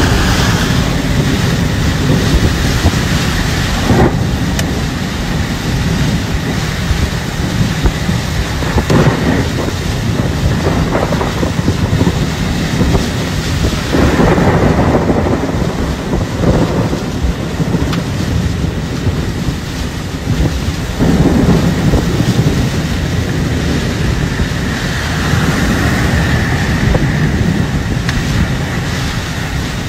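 Storm wind gusting hard with heavy rain, buffeting the microphone in a loud, continuous rush that swells with each gust every few seconds.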